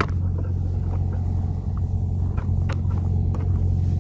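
A steady low rumble, with a few faint light clicks or taps.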